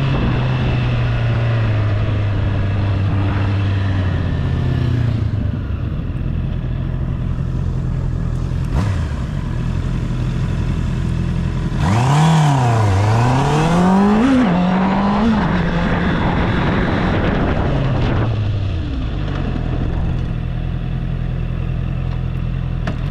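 Honda CB650R's inline-four engine under way at low speed, holding a steady pitch for stretches and rising and falling with the throttle. About twelve seconds in comes a run of quick revs up and down, then it settles back to a steadier note.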